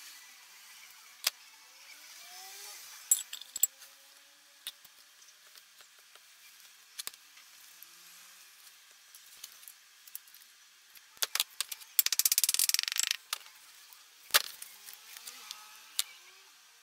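Metal hand tools clinking and knocking, with a run of rapid, evenly spaced clicks lasting about a second near the end.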